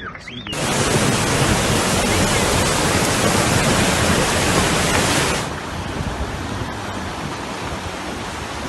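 Loud, steady rush of floodwater. About five seconds in it cuts abruptly to a quieter rush of water.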